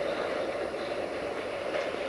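Freight train of tank wagons rolling slowly along the track, a steady noise of steel wheels running on the rails.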